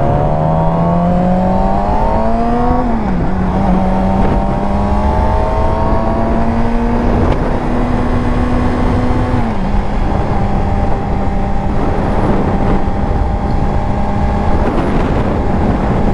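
Yamaha R6 sport bike's inline-four engine pulling under way. The revs climb, drop at a shift about three seconds in, climb slowly again, drop near ten seconds, then hold steady, under heavy wind noise on the microphone.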